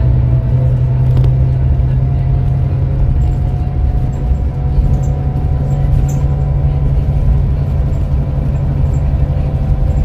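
Scania K410EB6 coach's 13-litre six-cylinder diesel heard from inside the cabin while under way: a steady low drone with a faint whine that rises slowly in pitch.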